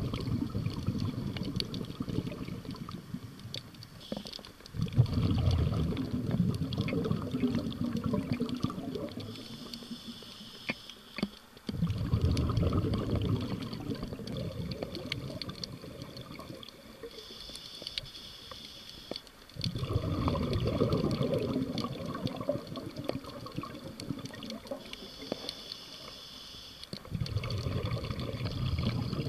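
Scuba diver breathing through a regulator underwater: a short hiss of inhaled air, then a long rush of exhaled bubbles, in a slow cycle about every seven to eight seconds.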